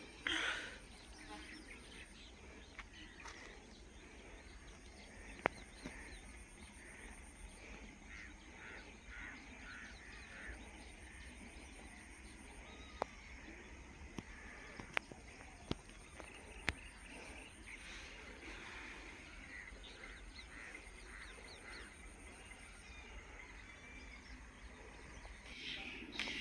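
Many birds chirping and calling together, short repeated calls overlapping throughout, with a few sharp clicks standing out above them.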